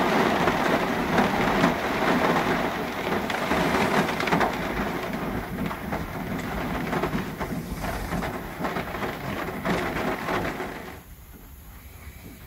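Rain falling on a Peugeot Partner van's roof and windows: a dense, steady patter of drops that thins out and stops about eleven seconds in.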